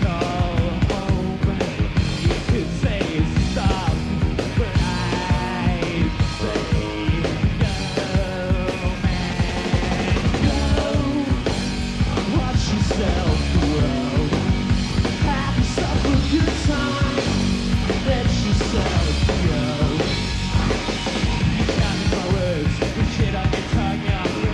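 A rock band playing live: drum kit, electric guitars and bass going at a steady level.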